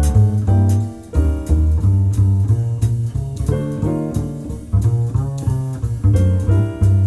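Instrumental background music with a steady bass line that moves to a new note about every half second, over plucked chords and light percussion hits.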